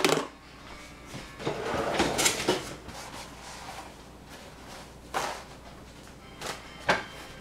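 Kitchen handling noises: a few separate knocks and clatters, with a rattly cluster about two seconds in and sharp knocks near the end, of the kind made by drawers, cupboards and food containers being handled.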